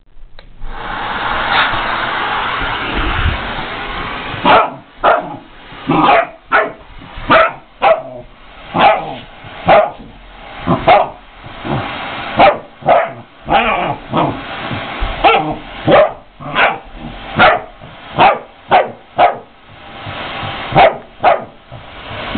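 Puppy barking over and over at a vacuum cleaner hose, sharp single barks about one a second. A vacuum cleaner runs steadily underneath, heard alone for the first few seconds before the barking starts.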